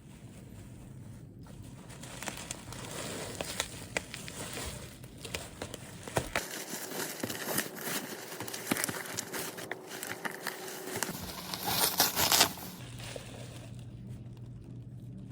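Packaging crinkling and rustling as it is handled, with scattered small clicks and a louder ripping noise about twelve seconds in.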